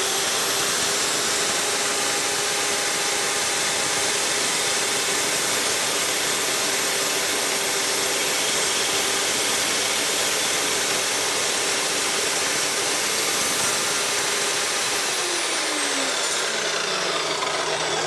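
DeWalt Multicutter dry-cut metal chop saw running and cutting a slot into a metal part held in a vise, with a steady high whine. About fifteen seconds in it is switched off and the whine falls in pitch as the blade spins down.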